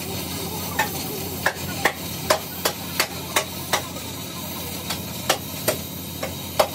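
Light, sharp taps, two to three a second at an uneven pace with a short pause about four seconds in, over a steady low hum.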